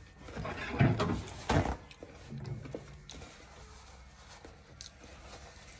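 Two short muffled thumps close to the microphone, about a second apart, followed by a brief low hum and then quiet room tone.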